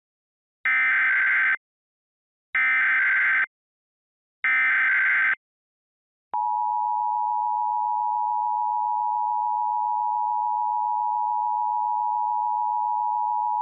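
Emergency Alert System tones: three identical one-second bursts of SAME header data, a buzzy digital screech, then about six seconds in the steady two-tone EAS attention signal (853 and 960 Hz together) begins and holds.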